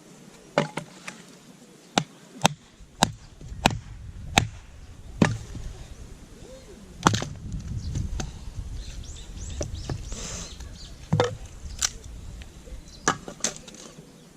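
Firewood being split by hand: about a dozen sharp wooden knocks at irregular intervals, coming quickly in the first few seconds and more sparsely later.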